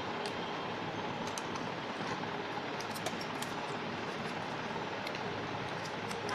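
Steady background noise with scattered faint light clicks as a flat ribbon cable is handled.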